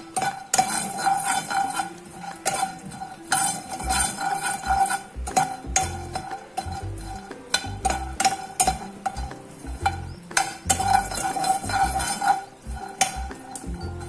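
A spatula stirs and scrapes raw peanuts and roasted chana dal around a dry nonstick pan with no oil. The nuts rattle and click against the pan in quick, irregular knocks as they roast.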